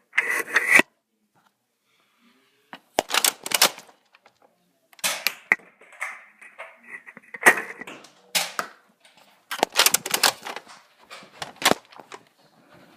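Nerf foam-dart blasters firing and being handled: about seven short bursts of sharp clicks and snaps with brief gaps between them.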